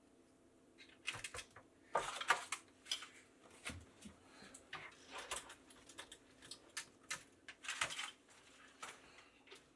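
Irregular light clicks and knocks, starting about a second in, over a faint steady hum.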